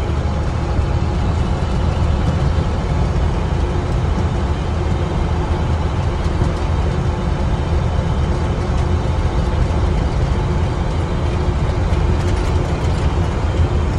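Box truck's engine and road noise heard from inside the cab while driving at a steady speed: a continuous low drone.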